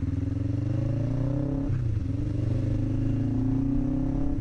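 Motorcycle engine running under way, heard onboard; its note climbs gently, drops sharply for a moment about halfway through, then climbs again.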